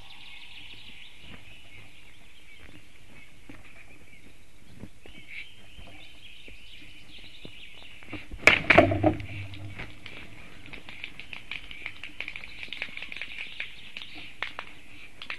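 Black stork wing flaps and nest scuffling as one stork mounts its mate: a short burst of loud flapping strokes about halfway through, then lighter rustling and tapping. Songbirds chirp steadily in the background.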